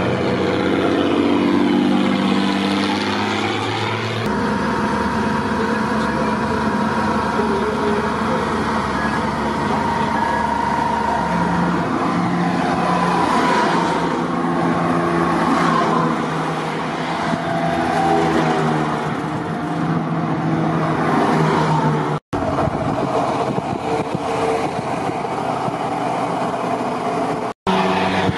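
Eight-wheeled armored vehicles driving past, their diesel engines running and changing pitch over tyre and road noise, mostly a column of US Army Stryker vehicles. The sound changes abruptly about four seconds in and cuts out for an instant twice near the end.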